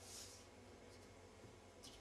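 Near silence: faint squishing and rustling of soft yeast dough being kneaded by hand in a stainless steel bowl, with a soft click or two, over a low steady hum.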